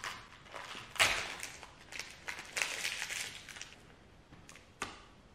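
Crinkling and tearing of a Violet Crumble honeycomb bar's wrapper as it is opened, loudest about a second in. A single sharp crack comes near the end as the brittle honeycomb toffee bar is bitten.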